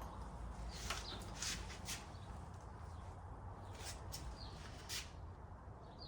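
Birds chirping in short falling calls, with a few light clicks and knocks in between, over a low steady background hum.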